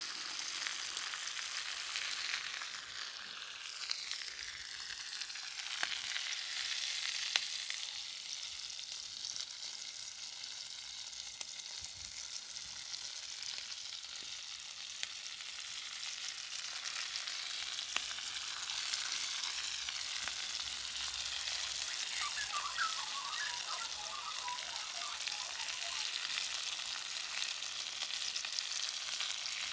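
Bacon, vegetables and chops frying in several iron pans over open coals: a steady sizzle with a few sharp pops.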